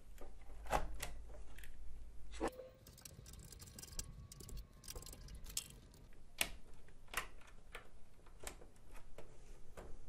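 Scattered clicks, taps and light knocks from a GTX 1060 graphics card being fitted into a PC's motherboard slot and its power cable being plugged in, with one sharper knock that rings briefly about two and a half seconds in.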